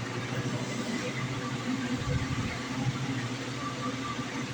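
Steady mechanical hum of a walk-in cooler's refrigeration unit and fans running.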